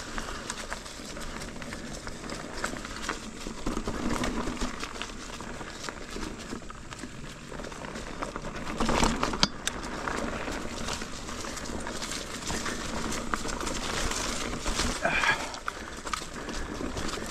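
Ibis Ripley AF mountain bike ridden slowly over rooty, technical singletrack: tyres rolling over dirt and roots, with frequent knocks and clicks from the bike and a louder clatter about nine seconds in.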